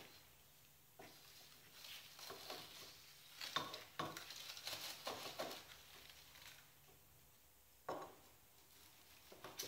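Faint rustling and light crackling clicks of black curly shavings being pressed and rearranged by a gloved hand among black tubes, in scattered short bursts, loudest a little past the middle.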